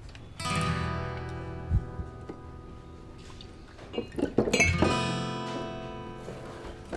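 Acoustic guitar music: a strummed chord about half a second in rings out and fades, then a louder run of strums comes about four and a half seconds in and slowly dies away. A short low thump sounds under the first chord, just under two seconds in.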